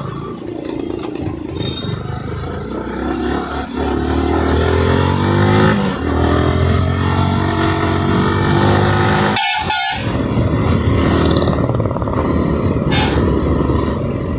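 Yamaha R15M's single-cylinder engine pulling through the gears in traffic. Its pitch climbs, dips at a gear change about six seconds in, and climbs again under steady wind and road noise. A quick double horn beep sounds about halfway through.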